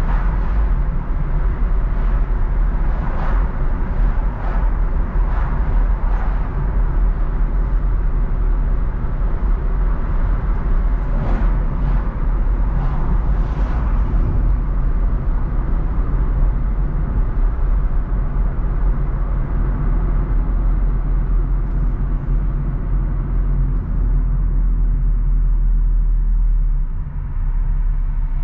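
Car driving on a city street: a steady low rumble of engine and tyre noise, with several brief swishes in the first half. The rumble drops off near the end.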